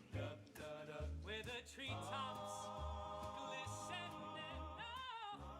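Background music: a song with a singer holding long notes with vibrato over a low beat about once a second.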